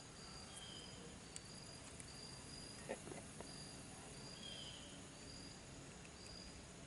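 Faint outdoor insect chirping: short high notes repeating about twice a second, with two lower slurred calls and a few soft clicks mixed in.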